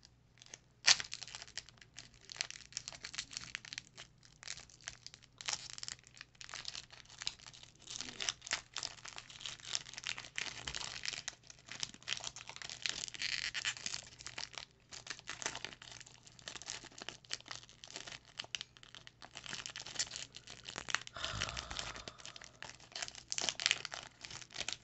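Foil Pokémon card booster pack wrapper being torn open and crinkled by hand: irregular crackling and rustling of the foil, with a sharp crack about a second in.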